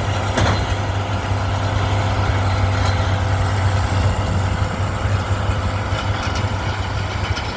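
John Deere 4430 tractor's six-cylinder diesel running steadily while pulling a round baler, with a short click about half a second in.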